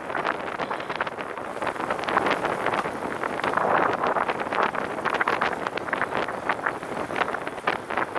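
Wind buffeting the microphone of a camera riding on a moving recumbent trike: a loud, uneven rushing noise that swells and fades.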